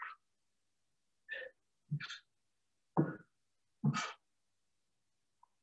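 A man's short, forceful breaths puffed out with the effort of toe-touch crunches, five of them at uneven intervals of about half a second to a second.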